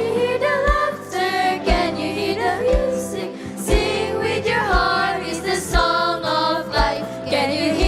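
Children's choir singing a gospel song over musical accompaniment, with a steady drum beat about once a second.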